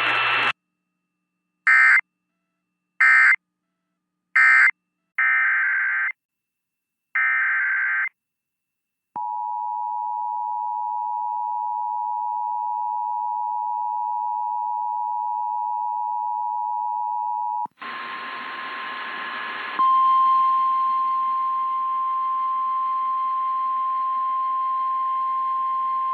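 Emergency Alert System tones: five short screeching digital data bursts, then the two-tone attention signal held for about eight seconds. After it comes a hiss with a single loud steady tone near 1 kHz, the NOAA Weather Radio warning alarm tone.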